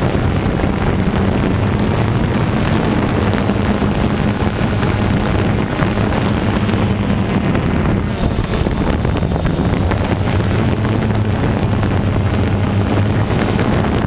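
Multirotor drone's electric motors and propellers running with a steady low hum, mixed with wind rushing over the microphone.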